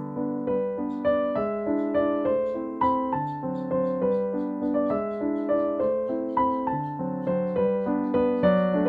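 Background piano music: soft notes and chords struck a few times a second, each fading away.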